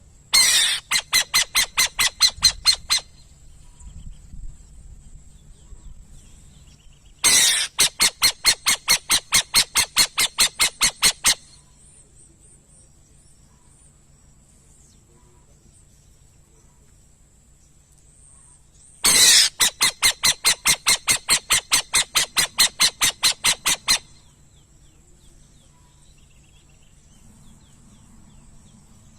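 Burrowing owl calling in three bursts of rapid, harsh chattering notes, about five or six a second, each burst lasting a few seconds.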